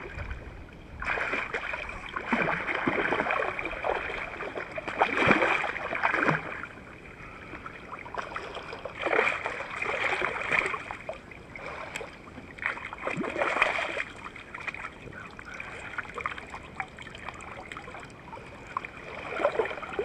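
A hooked fish thrashing and splashing at the surface as it is fought in on rod and line in shallow water. The splashing comes in several bursts a few seconds long, with quieter sloshing water between them.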